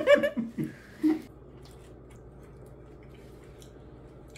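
A man's laughter trailing off in the first second, then faint room tone with a low, steady hum.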